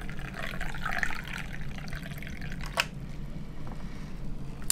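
Water running and trickling, with a sharp click a little before three seconds in.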